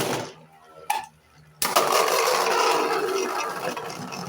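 Two 3D-printed Beyblade Burst spinning tops launched into a stadium about a second and a half in, then spinning and clashing against each other and the stadium, a loud, dense whirring rattle that slowly fades.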